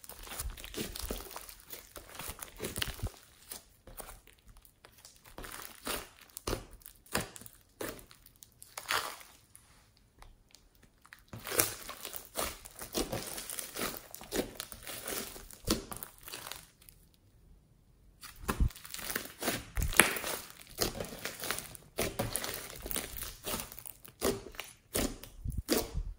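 Hands squeezing, stretching and poking a thick slime mixed with small foam beads, making sticky squelches and dense irregular clicks and pops. There are brief lulls between handfuls.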